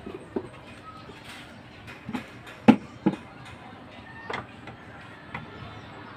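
A handful of irregular sharp knocks of hand tools and timber being handled on a wooden boat frame. The loudest knock comes about two and a half seconds in, with another close after it.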